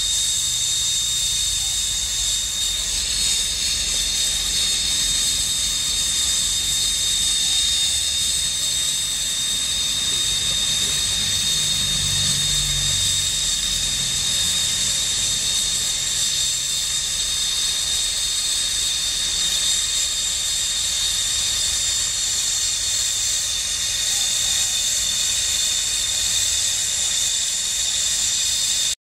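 Gas brazing torch flame hissing steadily as it heats a ground wire joint on a copper ground rod for silver brazing.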